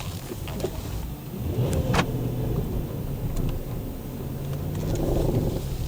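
Car engine running with road noise at low speed, heard from inside the cabin, with a single sharp click about two seconds in.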